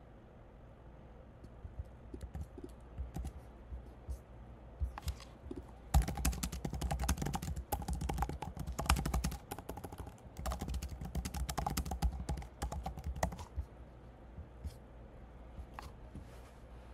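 Typing on a computer keyboard: a quick, dense run of keystrokes from about six seconds in until about thirteen seconds. A few scattered single clicks come before and after the run.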